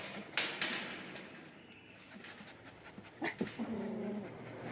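Pomeranian panting close up, with a couple of sharp clicks and a short whine about three and a half seconds in.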